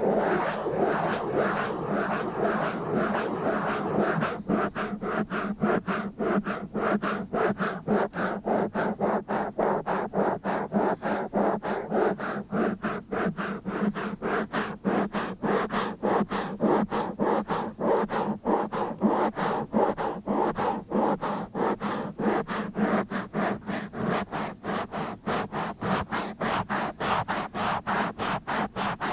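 Rough scratching directly on a microphone. A few seconds in it changes from a continuous scrape to quick, even strokes, about three a second.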